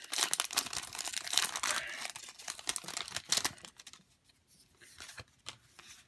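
A Pokémon TCG Ultra Prism booster pack's foil wrapper being torn open and crinkled: a dense crackle for about three and a half seconds, then only a few faint rustles and ticks as the cards are handled.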